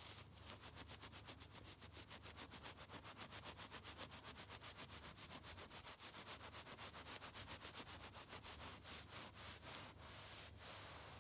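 Fingernails scratching quickly back and forth through the pile of a shag rug: a faint, even rhythm of about six strokes a second, thinning out near the end.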